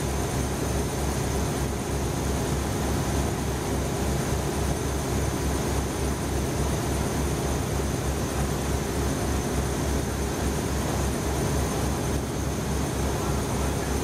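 Bulkhead sand-carrier boat's engine running steadily under way, a low even throb with a noisy wash over it.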